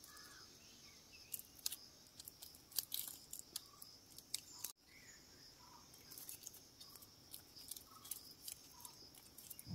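Faint crinkling and clicking of clear cellophane tape being pulled and wound around a graft, over a steady high insect drone and a few soft bird chirps.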